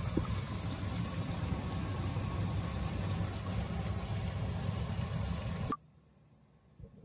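Steady low rumbling noise over a gas hob with pans of curry and fish cooking, cut off suddenly about six seconds in, followed by quiet with a small tap.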